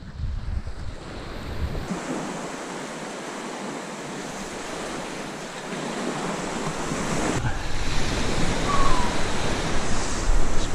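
Waves washing onto the beach on the incoming tide, with wind buffeting the microphone; the surf gets louder in the second half.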